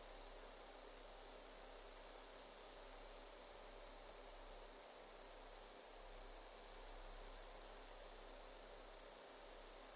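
Steady, very high-pitched hiss: electronically generated masking noise of the kind played for tinnitus relief.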